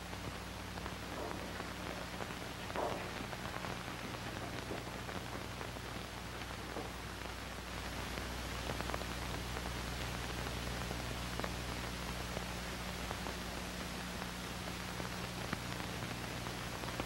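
Steady hiss and low hum of an old film soundtrack, with a few faint knocks now and then.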